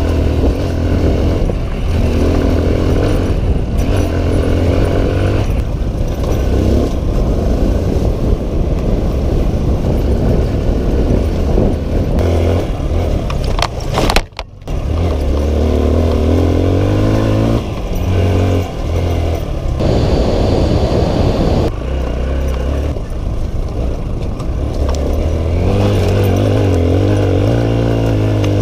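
Kawasaki KLX150 dirt bike's single-cylinder four-stroke engine running under load during off-road riding, its pitch repeatedly climbing and dropping back as the rider revs and shifts. About halfway through there is a brief dropout with a click.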